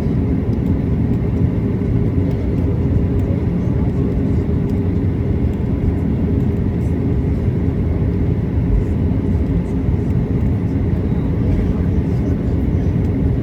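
Steady low drone of a Boeing 737-800's cabin on the ground after landing, with a constant hum running through it.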